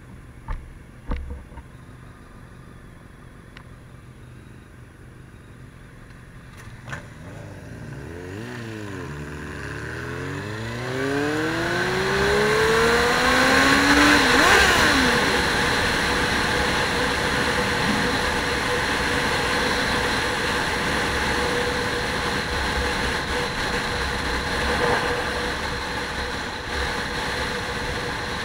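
Motor vehicle engine revving up and accelerating, its pitch rising and the sound growing loud about halfway through, with a drop in pitch at the loudest point, then running on steadily. Two short knocks are heard in the first second.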